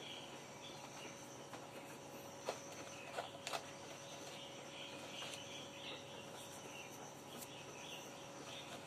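Faint background ambience: high chirping that comes and goes over a steady low hum, with three sharp clicks about two and a half to three and a half seconds in.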